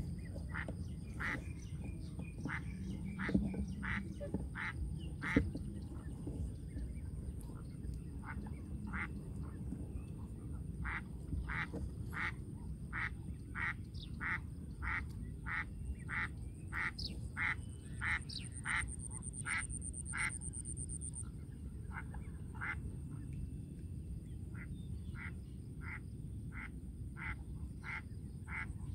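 A duck quacking in a long, regular series of short calls, about two a second, with a couple of brief pauses, over a low steady rumble. Two sharp knocks come about three and five seconds in.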